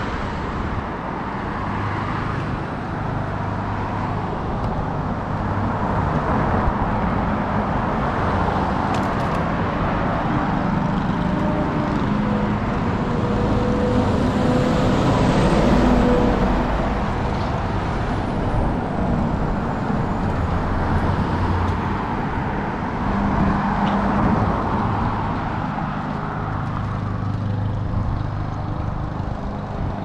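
Steady road traffic on a city street, cars passing one after another with their engines and tyre noise. A box truck passes close about halfway through, and that is the loudest stretch.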